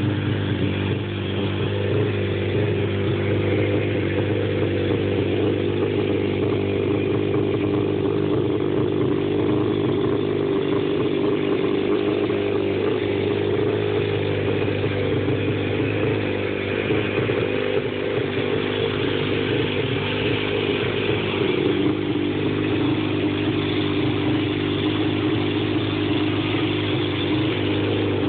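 A 1991 Yamaha FZR600's inline four-cylinder engine idling steadily.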